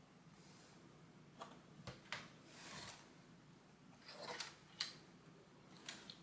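Faint, scattered clicks and a soft rustle of small plastic Lego pieces being handled.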